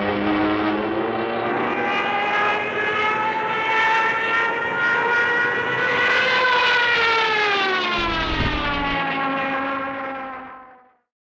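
A World War II-era aircraft's engine flying past: a loud droning note whose pitch climbs slightly, then drops steadily from about six seconds in as it goes away, fading out near the end.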